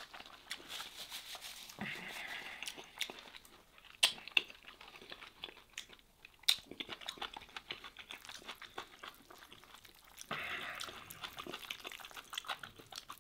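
Close-miked eating sounds: chewing with wet mouth clicks and smacks, with a few sharper clicks. Near the end comes a rustling, tearing sound as hands pull apart a fatty piece of slow-cooked lamb back with rice.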